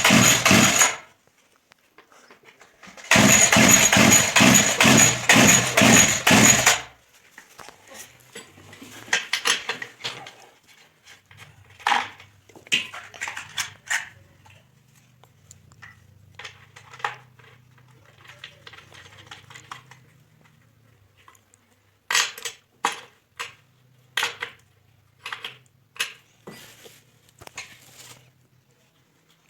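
A loud, evenly pulsing mechanical burst lasting a few seconds, then scattered metal clinks and knocks from handling the alfalfa mower's engine parts and tools.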